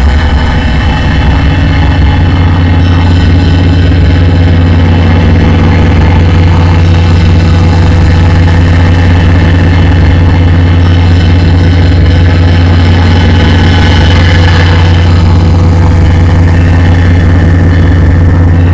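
Loud electronic noise music in the dark-ambient style: a steady low drone with a dense, grainy wash of noise over it.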